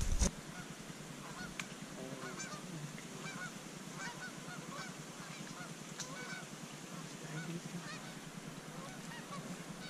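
Faint honking of distant geese: many short calls scattered and overlapping, as from a flock, with a few soft clicks in between.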